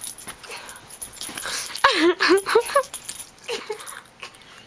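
Long-haired dachshund whining in a cluster of short cries that slide down and up in pitch about two seconds in, with a couple more near the end. She is agitated by a piece of gum held toward her. Bedding rustles under her as she moves.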